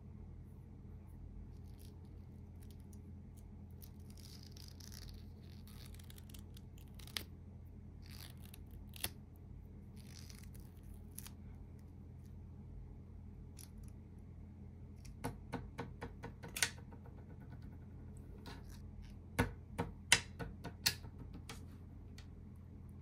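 Light clicks and taps from handling a raindrop cake packed in a small rubber balloon, and its paper tray, on a wooden desk: two single clicks, then a run of quick clicks, and a louder cluster near the end, over a steady low hum.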